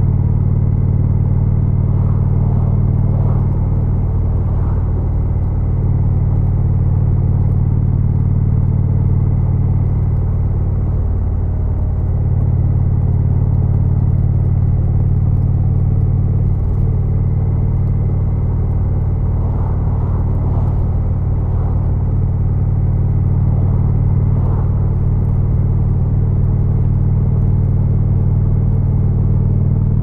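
Indian Chief's Thunder Stroke 111 V-twin engine running at a steady cruise through a Freedom Performance exhaust, a continuous low rumble heard from the rider's seat.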